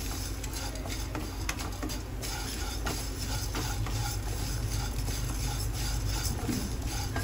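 Wooden spatula stirring and scraping broken pieces of dry Maggi noodles around a nonstick pan as they roast, with many light clicks and rustles from the loose noodle pieces over a steady low hum.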